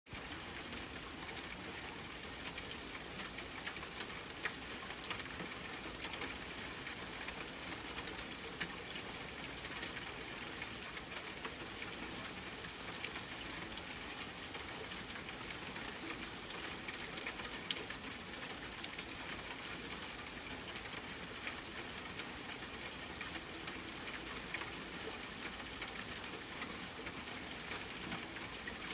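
Steady rain falling on a surface, an even hiss with many individual drops ticking through it and a few louder drop hits now and then.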